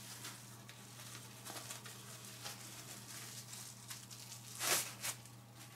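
Bubble wrap rustling and crinkling as it is peeled off a boxed device by hand, with a louder crackle of tearing plastic about three-quarters of the way through.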